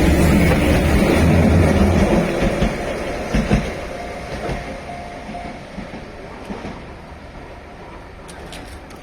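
Keihan 600-series two-car electric train running past on the line, loud at first with a few wheel knocks over the rail joints, then fading away as it moves off.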